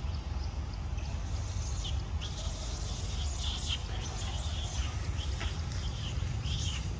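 A string of short, high chirping animal calls, scattered through most of the stretch, over a steady low rumble.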